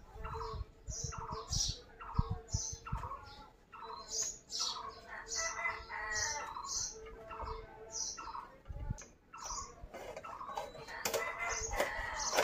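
A bird calling over and over, short calls about twice a second, with a few low thuds in the first few seconds.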